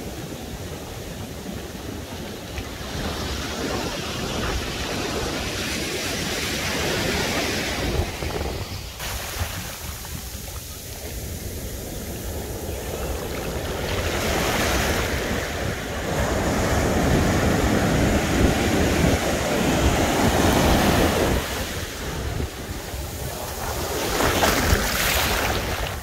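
Pacific surf washing up the beach: waves breaking and foamy water rushing over the sand, swelling and easing several times and loudest in the second half. Wind buffets the microphone underneath.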